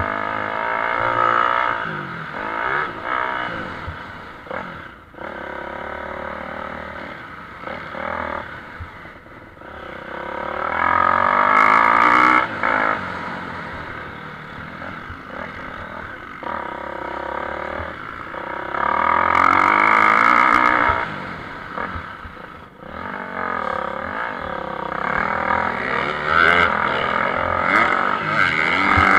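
Motocross bikes racing on the track, their engines revving up and down as they climb through the gears and shut off. The sound swells loudest twice as bikes pass close by.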